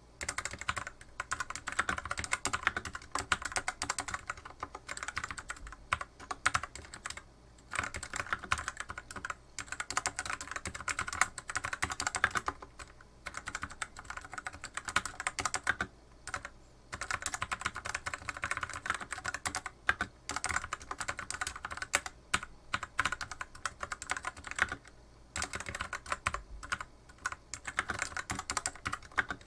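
Typing on an FL-ESPORTS MK870 mechanical keyboard with stock, unlubricated Outemu Purple switches: fast runs of key clacks a few seconds long, broken by brief pauses.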